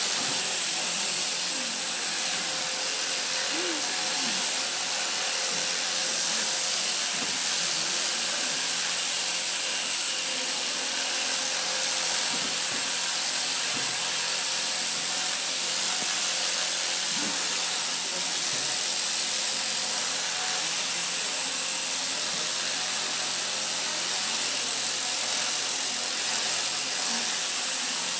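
Electric sheep shears running steadily while a ewe is shorn: a constant motor buzz and hiss with a steady whine.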